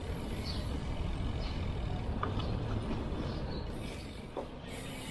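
Wind and tyre noise from a mountain bike being ridden along a paved street: a steady low rumble, dipping briefly about four seconds in.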